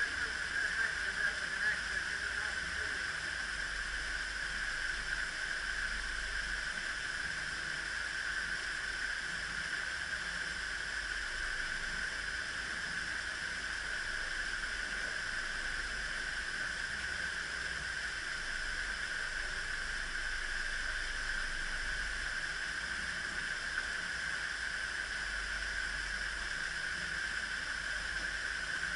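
Water rushing steadily through the open sluices of the upper lock gates into the lock chamber as the lock fills.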